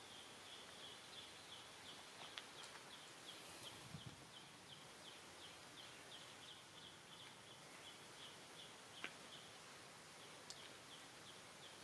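Faint outdoor ambience with an even run of short, high chirps, about four a second, that stops for a moment late on and then resumes, plus a few faint clicks.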